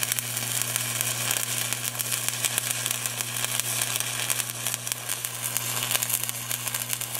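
Stick (shielded metal arc) welding arc crackling and sizzling steadily while the hot pass is run with a small weave along a bevelled steel test-plate joint, over a steady low hum.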